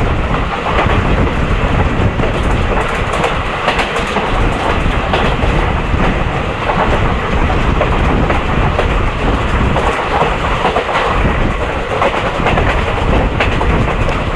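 Electric train running at speed, heard from the coach right behind a WCAM1 locomotive: a loud, steady rumble with wheels clattering over the rail joints.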